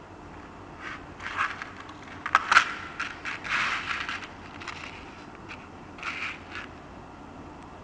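Silver-tone pocket watch and its metal link chain being handled: scraping and clinking in scattered bursts, with a few sharp clicks about two and a half seconds in as the watch is turned over and set down.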